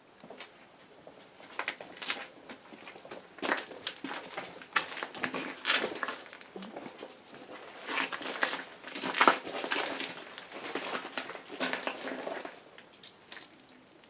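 Irregular crinkling and crunching: a dense run of small crackles and rustles that starts about a second and a half in and dies away near the end.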